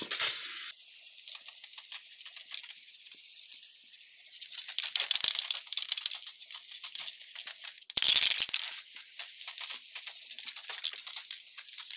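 Aerosol spray can hissing steadily as it sprays a dye coating. The spray stops briefly about eight seconds in, then starts again.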